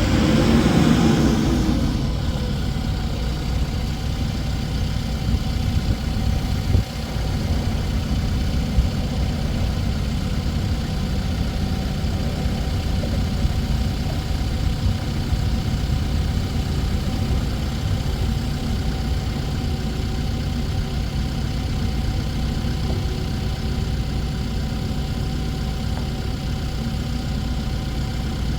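Diesel engine of a 2017 Case 580N EP backhoe idling steadily, louder for the first second or two.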